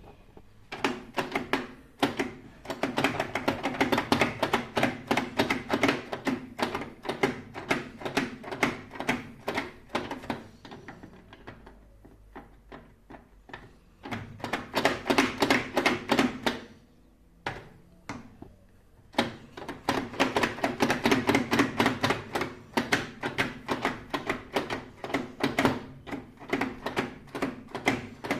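Door of a new Kogan microwave rattling and its latch clicking over and over, several clicks a second, as the jammed door is worked at; it will not open. The clicking comes in three long runs with short pauses between them.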